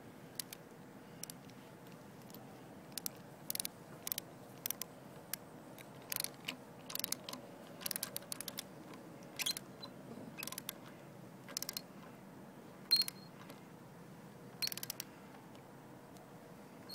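Hand socket ratchet wrench clicking in short runs of pawl clicks, every second or so, as it is worked back and forth to tighten a twist-off nut on a ground anchor.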